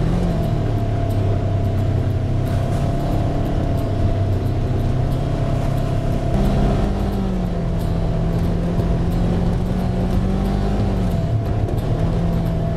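Polaris RZR side-by-side engine running steadily while driving a muddy dirt trail. Its pitch steps up about halfway through, eases back down, and shifts again near the end.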